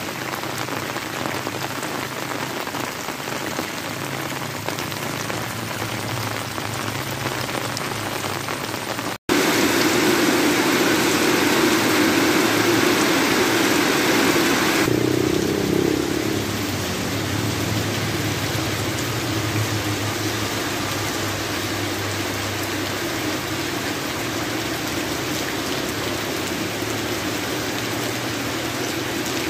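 Heavy rain falling steadily, with muddy runoff water pouring over an earth bank in the first part. A brief break about a third of the way in; after it the rain is louder for several seconds, then settles a little softer and steady.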